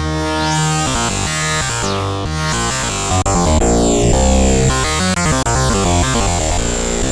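ASM Hydrasynth digital wave-morphing synthesizer playing a factory preset: a fast run of changing notes over a heavy bass, with falling sweeps in the upper range through the middle and two brief dropouts.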